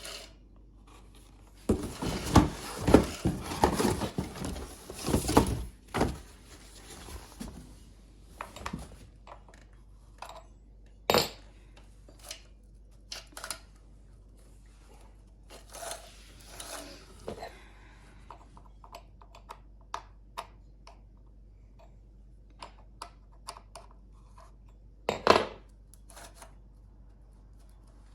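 Handling noises from unpacking and fitting a new chainsaw: a few seconds of rustling and clattering about two seconds in, then scattered knocks and clicks, with a sharp knock near the end.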